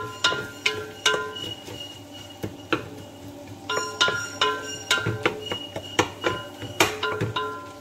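Wooden spatula stirring and knocking against the sides of a large aluminium pot of onions and tomatoes. It makes irregular sharp knocks several times a second, and after each one the pot rings briefly with clear tones.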